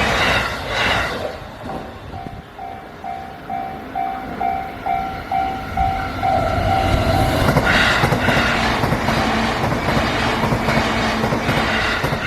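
Japanese level-crossing electronic warning bell ringing in alternating two-tone strikes, about two a second. About seven and a half seconds in, a JR Nambu Line electric train passes over the crossing, and its loud running noise covers the bell.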